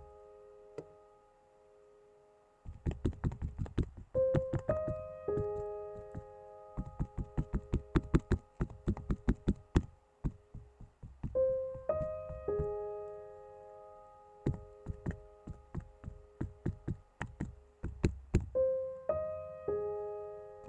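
Bundle of cotton swabs dabbing acrylic paint onto a stretched canvas: quick runs of sharp taps, several a second, with short pauses between. Soft piano music plays underneath.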